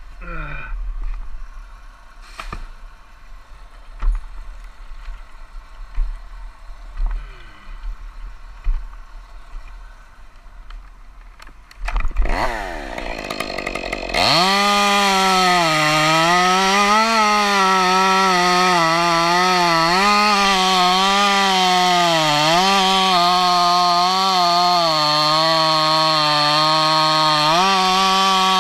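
Scattered knocks and rustling for about twelve seconds, then a chainsaw revs up suddenly and runs loud at high revs. Its pitch dips and recovers several times as it bogs under load in the cut.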